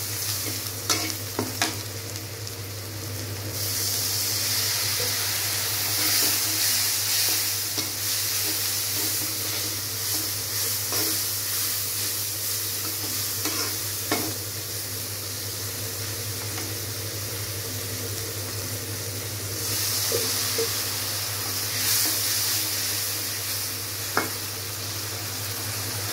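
Onions and spices sizzling in oil in a black iron karahi, stirred with a flat spatula that scrapes the pan and knocks against it in a few sharp clicks, over a steady low hum.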